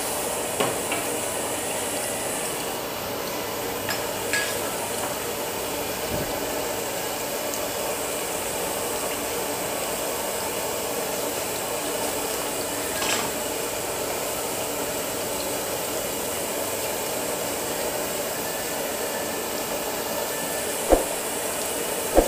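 Steady hiss of a wok of coconut-water tom yum broth heating on the stove, with a few sharp clinks of a metal ladle against the metal wok, the two loudest near the end.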